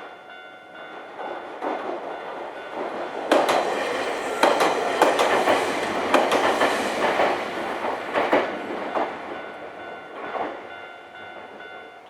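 Nankai Kada Line electric train passing over a level crossing, its wheels clacking over the rail joints, building up and loudest in the middle before fading. The crossing's warning bell rings steadily throughout, heard most clearly at the start and end.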